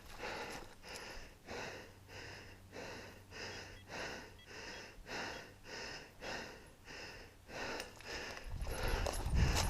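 A person breathing hard and rhythmically, about one and a half breaths a second, as from exertion. Near the end a louder, rough rumble of movement builds over the breathing.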